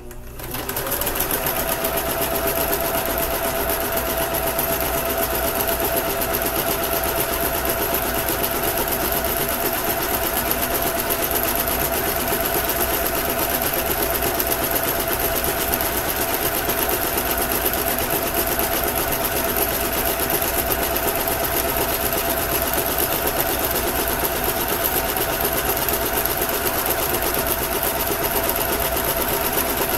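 Kenmore entry-level household sewing machine running steadily, stitching along the edge of cross stitch fabric. It gets up to speed within the first second, then holds an even running sound with a steady whine.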